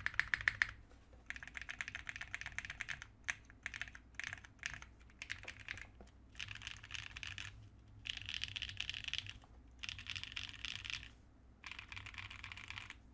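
TGR 910 mechanical keyboard with lubed vintage Kailh Cream switches, 68g springs, a polycarbonate plate and GMK keycaps being typed on. A fast run of keystrokes opens, then comes typing in bursts of a second or so, each with a short pause between.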